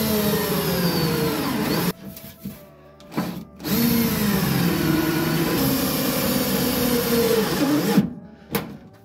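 Cordless drill driving self-drilling tek screws through a sheet-steel flange into a car floor pan: two long runs of the motor, the first stopping about two seconds in and the second running from about four seconds to eight, its pitch dipping and recovering under load. Between the runs there are a few short knocks.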